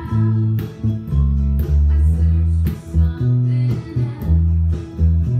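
Fender Precision electric bass playing a line of sustained low notes in A, along with a recorded country song with strummed guitar and a beat.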